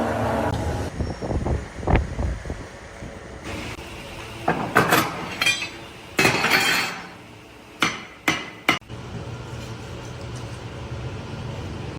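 Irregular metallic clanks and knocks of steel pipe parts being handled and struck, with a longer rasping noise about six seconds in and three sharp hits a little after eight seconds.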